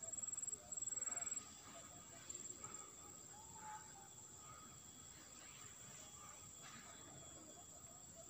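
Insects trilling: a faint, steady high-pitched buzz, louder and pulsing for about the first second and a half.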